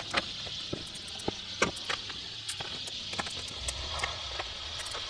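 Scattered light clicks and snips: a plastic cable tie being pulled through hexagonal wire mesh and its tail cut off with scissors, with the mesh and the cut-off ends clicking against the workbench.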